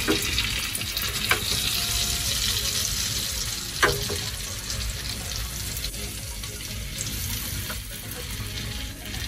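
Garlic butter and oil sizzling in a frying pan on leftover heat after the burner is turned off, a steady hiss that slowly fades. Metal tongs click a few times against the pan as the steaks are lifted out.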